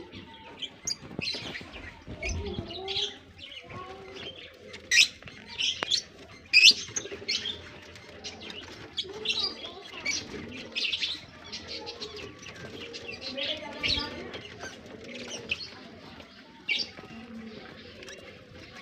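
Caged birds calling: many quick, sharp chirps over soft, low cooing of the kind diamond doves make.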